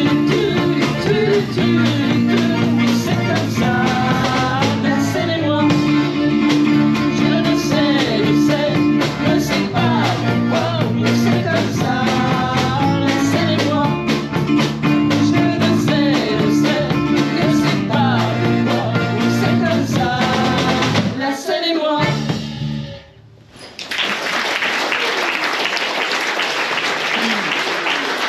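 A live band of button accordion, electric guitar, electric bass and drums plays a song with singing voices. The song ends a little after 20 seconds in, and the audience applauds.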